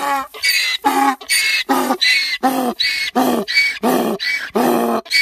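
Donkey braying: a long unbroken run of hee-haws, with high in-breath notes alternating with lower out-breath notes, about six cycles in a row.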